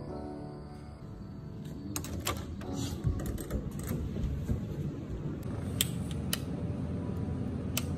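A scattering of sharp clicks from wall light switches being pressed, over a steady low room noise.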